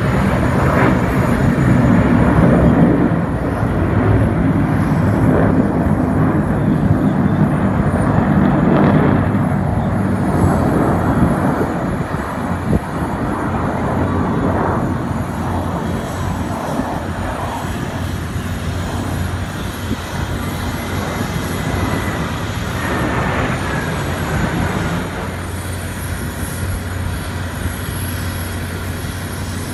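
Jet engines of a four-ship formation of military jets flying over, a steady rumble that is loudest in the first ten seconds or so and then eases off.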